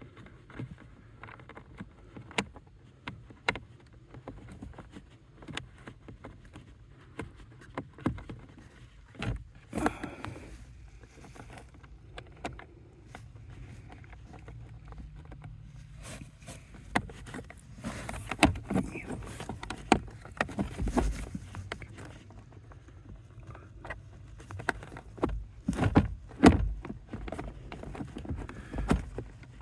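Irregular clicks, knocks and rustling of hands and tools working under a dashboard while fitting a replacement blower motor and starting its screws, with a few sharper knocks, over a low steady hum.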